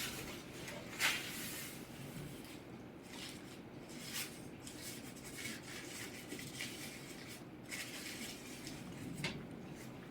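Small dogs eating and lapping from their bowls: faint rubbing and a few short clicks, over a low steady room hum.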